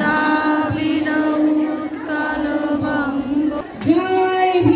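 A group of schoolgirls singing together in unison, holding long notes with short breaks between phrases.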